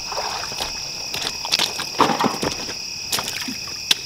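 Boots sloshing and squelching through shallow muddy water beside a kayak, with a couple of sharp knocks near the end. A steady chorus of night insects runs underneath.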